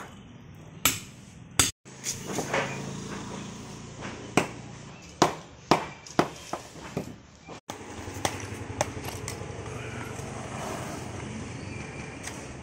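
Sharp, irregularly spaced knocks and clinks of masonry work: a hammer striking a chisel into brick and mortar, and broken bricks being knocked together as they are handled. A steady low hum sits under the later part.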